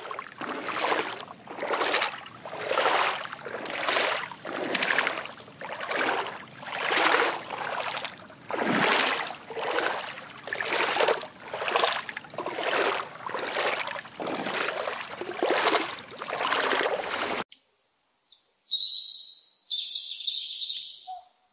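Water sloshing and splashing around a swimming dog, swelling and fading about once a second in time with its strokes. It stops abruptly, and after a short gap come a few short, high chirping calls near the end.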